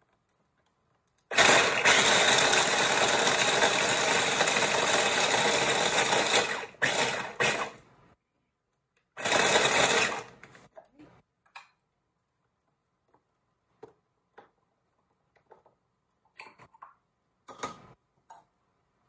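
Electric mini food chopper running, chopping nuts fine: one steady run of about five seconds, then a few short pulses and another burst of about a second. Near the end come small clicks and knocks as the lid and bowl are taken apart.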